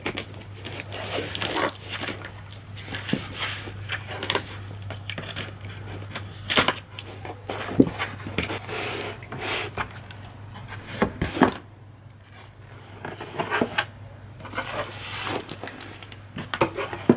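Cardboard delivery box being opened by hand: flaps pulled back and cardboard scraping and rustling, with irregular knocks and crinkles.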